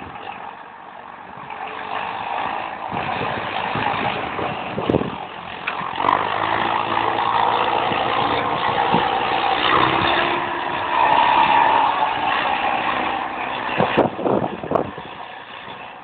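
Backhoe loader's diesel engine revving hard under load while it tows a stuck truck on a rope through snow. It builds up about two seconds in, stays loud through the middle and eases off near the end, with a few short knocks.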